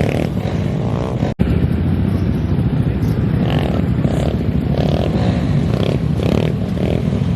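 Motorcycle engines running and revving, with the sound cutting out for an instant about a second and a half in.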